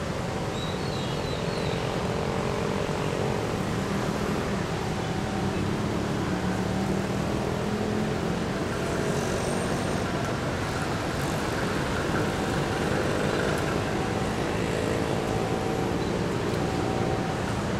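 Steady drone of a distant diesel locomotive engine as a passenger train approaches, over a constant hum of street traffic.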